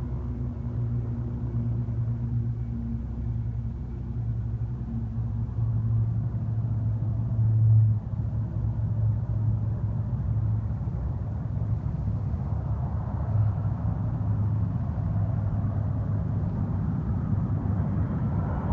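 Low, steady rumble of jet aircraft engines heard from a distance, with a few steady low tones and little high-pitched sound.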